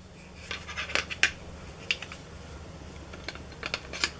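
Scattered light clicks and taps of a plastic camera clamp mount and its segmented flexible extension arm being handled, about half a dozen in all, over a steady low hum.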